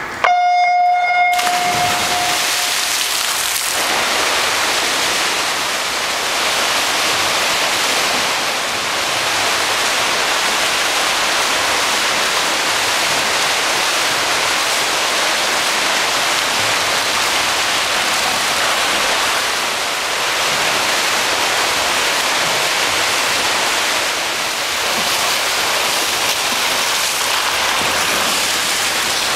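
An electronic start tone sounds at the beginning, then steady, continuous splashing of several swimmers racing freestyle, echoing in an indoor pool.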